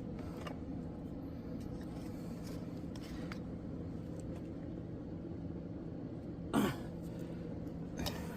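A steady low mechanical hum, like a motor running. About six and a half seconds in, one short, louder sound falls in pitch.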